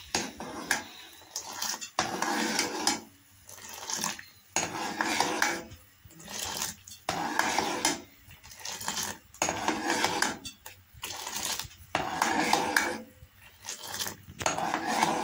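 Steel ladle repeatedly scooping Kashmiri pink tea out of a metal saucepan and pouring it back in from a height to beat and aerate it, the step that brings out the pink colour. Each stroke gives a clink of ladle on pot and a splash of the pour, about once a second.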